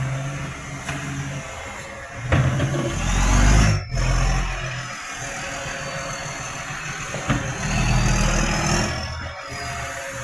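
Garbage truck engine running very loud through a massive exhaust leak, surging louder twice. A thin high whine glides up and then slowly down alongside it.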